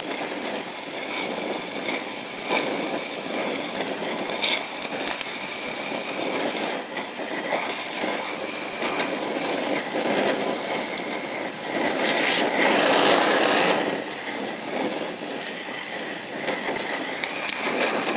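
DHC2000 oxyacetylene torch flame hissing steadily while welding chromoly tubing with filler rod, with frequent small crackles and pops from the weld. It gets louder for a couple of seconds about two-thirds of the way through.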